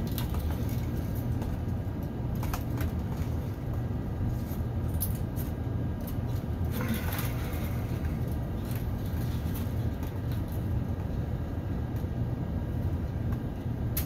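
Steady low drone of an air handler running, with a few small clicks and a brief rustle of cat6 cable wires being pressed into a patch panel.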